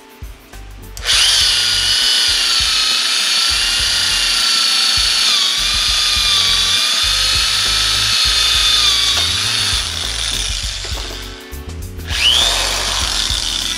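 J.C.K. Kawasaki 2010NR 500 W corded electric drill switched on about a second in, running with a steady high whine while boring into a wooden plank, its pitch dipping slightly midway. It stops, then spins up again near the end with a rising whine.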